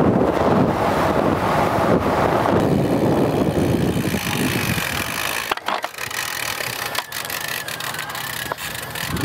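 Wind buffeting the microphone while riding at speed for the first few seconds, then quieter open-air road ambience with a few faint clicks.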